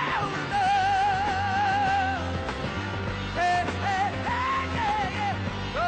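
Live heavy rock from a power trio: fuzz guitar, bass and drums playing a riff, with a high wordless vocal wail held and wavering.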